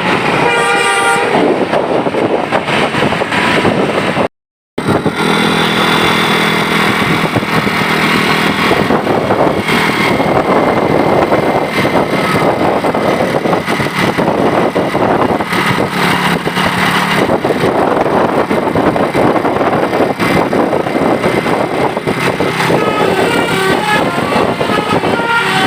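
Indonesian bus 'telolet' multi-tone musical horn playing stepped melodic notes near the start and a run of alternating notes over the last few seconds. Loud vehicle noise fills the gaps, and the sound drops out briefly at a cut a few seconds in.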